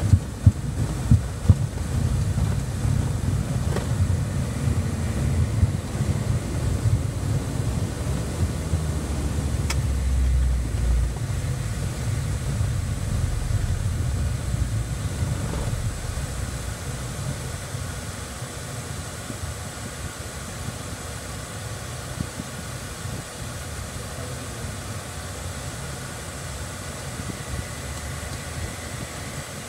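Cockpit noise of a Cessna Citation Bravo business jet decelerating on the runway after touchdown: a low rumble from the wheels and airframe, with a few jolts near the start, fading steadily as the jet slows. A faint steady high whine from its Pratt & Whitney PW530A turbofan engines runs underneath.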